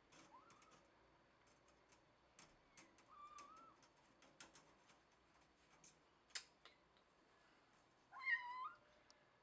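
A cat meowing: two short, faint mews early, then one louder, wavering meow near the end. Small clicks and taps fall between them, with one sharper click about two-thirds of the way through.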